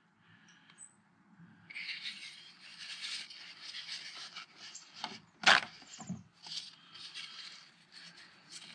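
Faint, irregular scraping and wiping as excess sealant is taken off around the base of a roof chimney, with one sharper click about five and a half seconds in.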